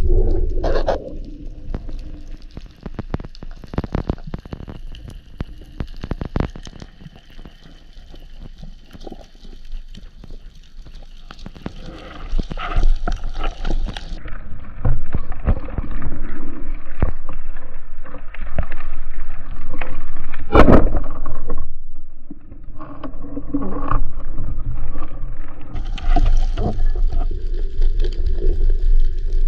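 Underwater sound picked up by a spearfisher's camera: water rushing and bubbling with many scattered clicks and knocks. About 20 seconds in there is a single loud, sharp crack, the shot of a speargun.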